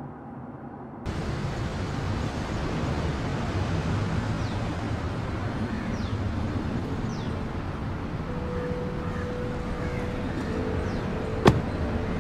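Steady outdoor road and vehicle noise with faint short bird chirps, and a single sharp knock near the end.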